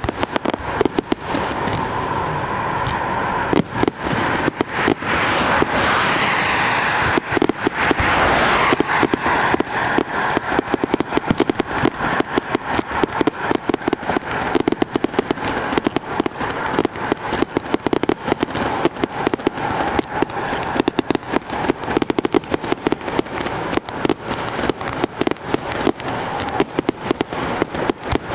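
Aerial fireworks display: many shells and crackling stars going off in rapid, nearly continuous bangs and crackles.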